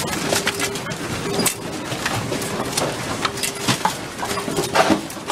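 Office objects and furniture rattling and knocking in irregular clatters during earthquake shaking, under a faint low tone repeating roughly once a second.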